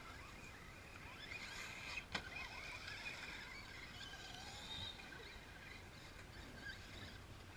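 Faint whine of electric radio-controlled trucks' motors, rising and wavering as they drive over the dirt track, with one sharp knock about two seconds in.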